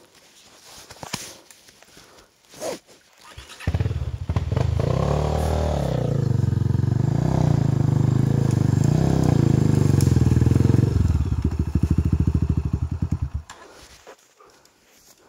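Dirt bike engine starts abruptly about four seconds in and runs with its revs rising and falling. It slows to a lumpy, pulsing low idle, then cuts off about two seconds from the end.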